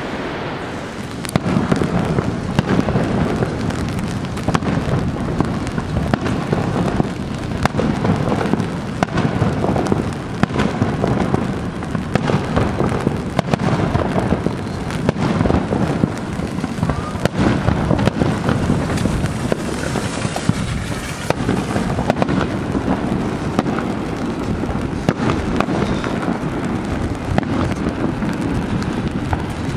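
Fireworks display: a dense, continuous run of bangs and crackles starting about a second in, over a steady rushing noise from the falling water.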